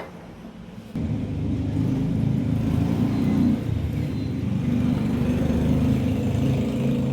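Kettle heating about half a litre of tap water: a steady low rumble that starts about a second in.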